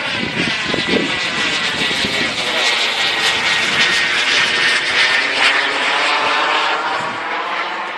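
KingTech K-80 model turbine of a radio-controlled Falcon 120 jet, a steady high whine as the plane flies past, loudest in the middle of the pass and easing off near the end.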